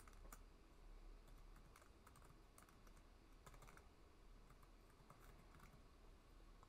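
Faint, irregular keystrokes on a computer keyboard as values are typed into a form.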